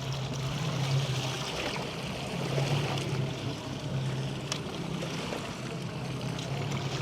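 Boat engine idling with a steady low hum, over a hiss of water lapping and moving around the hull.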